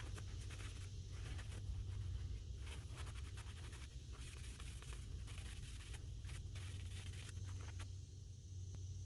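Irregular hand scraping and rubbing strokes on an old screwdriver being cleaned up, over a steady low hum.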